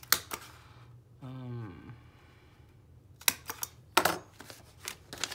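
Hand-held single-hole paper punch clicking through paper and chipboard journal pages: two sharp clicks at the start, then a cluster of clicks and knocks from about three seconds in, the loudest about four seconds in, as the punch is worked and put down on the cutting mat.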